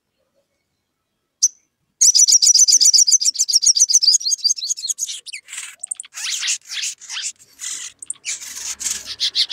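Olive-backed sunbird calling: a single sharp chip, then a fast high trill of rapidly repeated notes for about three seconds, breaking into harsher, scratchy chattering calls.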